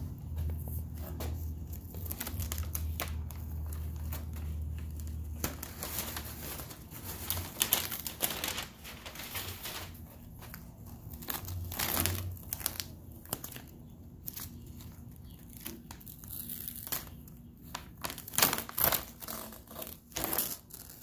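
Newspaper and blue painter's masking tape being peeled and pulled off a spray-painted stencil: irregular crinkling and rustling of paper, with tape tearing now and then.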